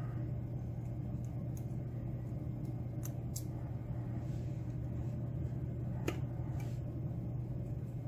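A few faint, sharp metallic ticks as steel tweezers work small pins in and out of the brass pin holes of an Abus padlock core, over a steady low hum.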